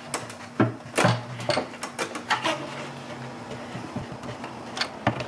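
A plastic intake manifold being worked loose and lifted off a V8 engine, with a string of sharp clacks and knocks as it shifts against the engine and surrounding parts.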